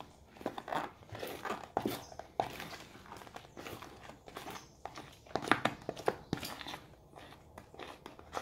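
Slime being kneaded and squished by hand in a plastic bowl as it reaches its set consistency. It makes irregular wet, sticky squelches and smacks, a little louder around the middle.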